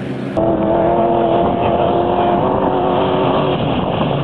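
Off-road race vehicle's engine running loudly at a steady pitch. Its hum fades about three and a half seconds in while the engine rumble carries on.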